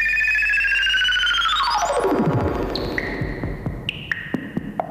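Electronic synthesizer music. Two pulsing tones glide apart, one rising high and the other sweeping down into a deep bass over the first two and a half seconds, then scattered short plinks at different pitches.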